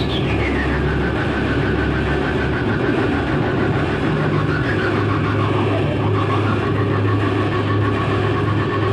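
Noise music: a dense, loud, steady wall of noise over a low drone. A high tone slides down at the start, then settles into a held tone, with other held tones beneath it.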